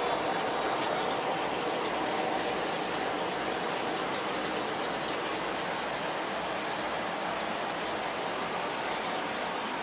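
Turtle tank's filter running: a steady rush of bubbling, splashing water.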